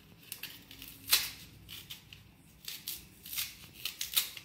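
Knife slitting and scraping along the thick green peel of a raw nendran banana: several short cutting strokes, the loudest about a second in, scoring the skin so that it can be pulled off.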